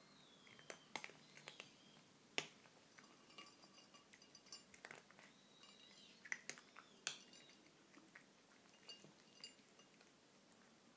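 A kitten crunching dry cat kibble from a plate, with quiet, irregular sharp crunches as it bites and chews.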